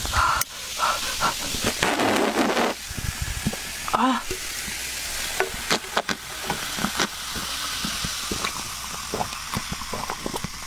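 Cola poured from a can into a glass mug, the pour lasting about the first three seconds, then the carbonation fizzing steadily while it is drunk in gulps.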